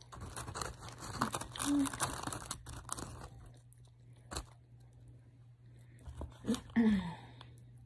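Paper fry wrapper crinkling as fries are picked out of it, with crunching and chewing close to the microphone. A single sharp click comes about halfway through, and a brief hum of the voice near the end.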